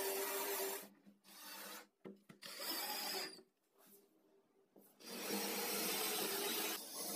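Cordless drill-driver running in bursts as it drives screws into a laminated board, the motor hum mixed with the grinding of the screw biting into the wood. A burst at the start, a few short bursts up to about three seconds in, a pause, then another long burst from about five seconds in.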